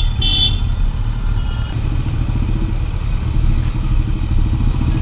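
Kawasaki Z900's inline-four engine running at low revs through a tight hairpin bend, a steady low rumble. A horn beep carries over into the very start.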